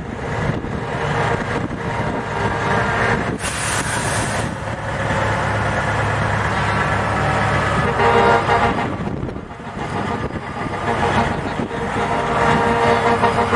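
Semi trucks' air horns sounding over the steady run of diesel engines, with a short burst of hissing air about three and a half seconds in; near the end a horn is blasted in quick, rapid pulses.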